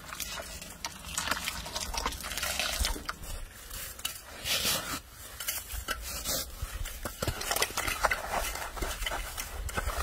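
Hot water poured from a kettle over tomatoes in an enamel bowl to blanch them, then handfuls of snow scooped into the bowl, crunching and scraping against the enamel as the tomatoes are chilled.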